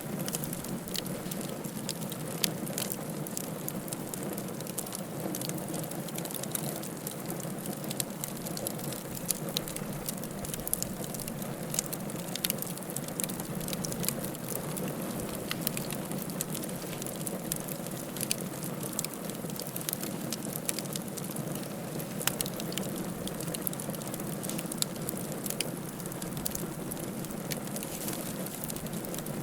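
Wood fire crackling in a fireplace: frequent irregular sharp pops and snaps over a steady low hiss of the burning fire.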